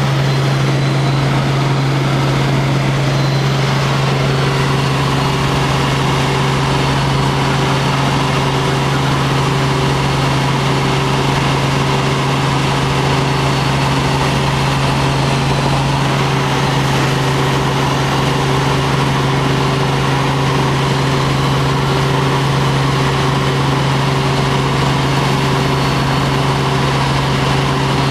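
Helicopter in flight, its engine and rotors giving a loud, steady hum that does not change.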